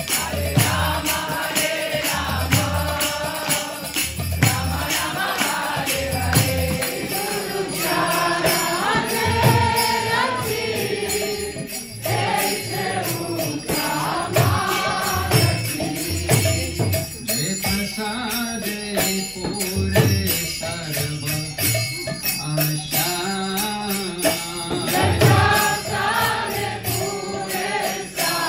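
Devotional group chanting (kirtan), with hand cymbals jingling steadily and a drum thumping in a regular beat, accompanying an arati lamp offering.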